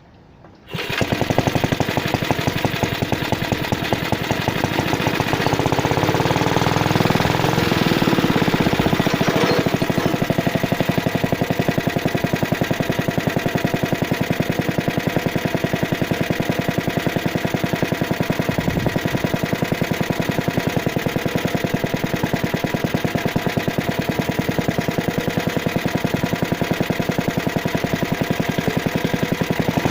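75cc Suffolk two-stroke petrol engine on a cylinder lawn mower starting up less than a second in, catching at once, then running steadily with a rapid, even firing beat; its pitch shifts briefly a few seconds after it starts.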